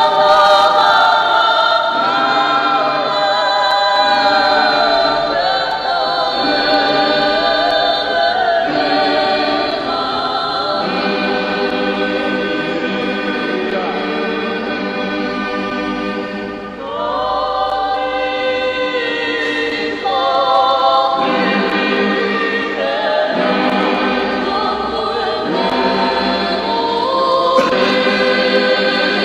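A choir singing a hymn in several-part harmony, the voices holding long notes and moving together from chord to chord.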